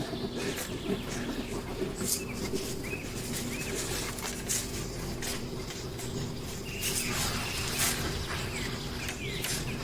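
Small birds chirping in short calls, over scattered clicks and knocks and a faint steady hum.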